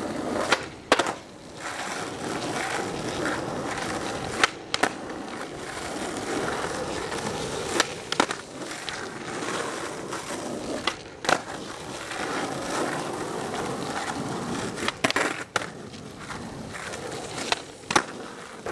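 Skateboard wheels rolling on pavement, broken by sharp clacks of the board, several of them in pairs about half a second apart: the tail popping and the board landing on tricks.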